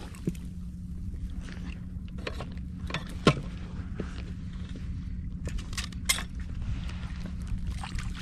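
Steady low rumble of wind and water around a small inflatable boat, broken by a few sharp knocks and clicks as the landing net and fishing rod are handled. The loudest knock comes about three seconds in, another a little after six seconds.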